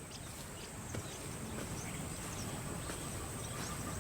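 African bush ambience: a steady high-pitched insect drone over a low rumble, with a few faint ticks.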